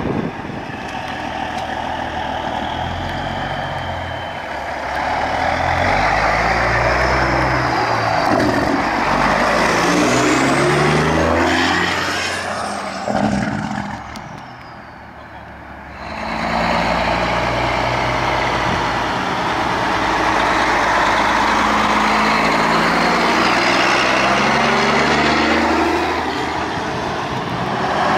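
Two American conventional semi-trucks with open exhaust stacks pulling away one after the other. Their diesel engines rise in pitch through each gear and drop back at every upshift. The sound dips briefly about halfway through.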